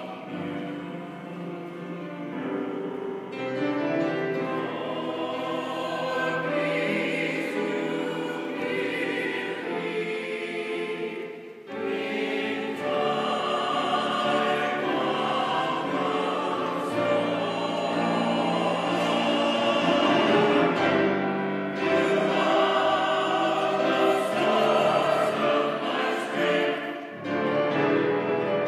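Mixed church choir singing a sustained anthem, with a short break between phrases about twelve seconds in.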